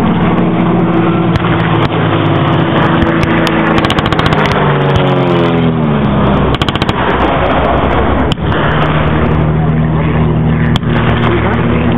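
A heavy vehicle engine running close by, its pitch falling over about two seconds near the middle before settling back to a steady run. Scattered gunshots crack over it, one sharp shot standing out past the middle.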